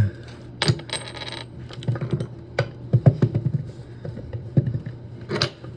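Light clicks and small metallic clinks of valve parts and tools being handled, with a sharper click near the end.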